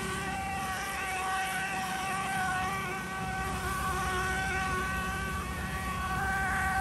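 Stucco-spraying rig running steadily while cement stucco is sprayed onto a wall: a constant machine drone with a high, even whine over a hiss of air and spray.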